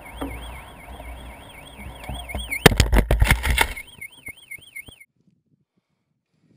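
Warbling electronic siren, a recovery locator beeper on the balloon payload, sounding over wind rush. About two and a half seconds in comes a burst of loud crashing and cracking as the payload lands in a desert shrub. The sound cuts off suddenly about five seconds in.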